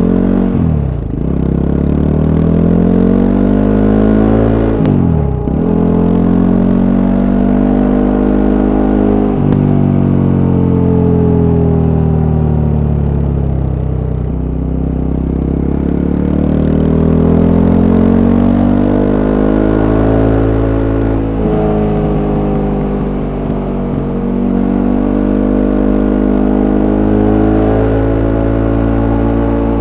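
Voge 300 Rally motorcycle's single-cylinder engine through its stock exhaust, heard from on board while riding. The revs climb and then drop quickly at gear changes three times in the first ten seconds, then rise and fall more slowly with the throttle.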